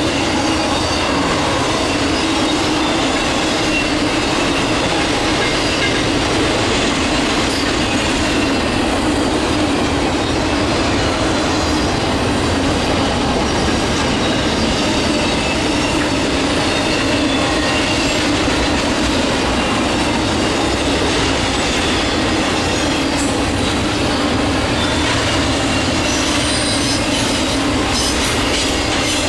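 Intermodal freight cars carrying highway trailers and double-stacked containers rolling past: a steady rumble of steel wheels on rail, with a faint high-pitched wheel squeal over it.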